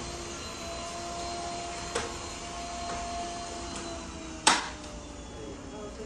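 Yeedi Vac Max robot vacuum running, a steady motor whine with fan and brush noise. A faint click about two seconds in and a louder sharp click about four and a half seconds in.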